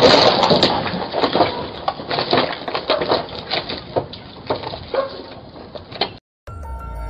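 Car crash: a loud crunching impact that fades over the first two seconds, followed by a string of sharp cracks and clatters of debris falling and a wooden pole splintering. It cuts off suddenly about six seconds in.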